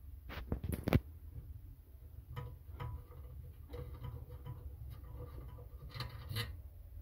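Fingers handling the cold boiler fittings of a Wilesco D16 model steam engine before it is fired. A few sharp clicks and a knock come about a second in, then small scattered clicks and light metal rubbing as the safety valve is unscrewed.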